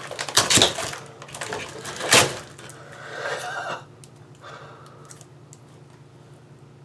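Cardboard tubes of a fireworks cake being handled and worked loose: a few sharp knocks and rubs in the first two seconds, then a scraping rustle about three seconds in, after which it goes quiet.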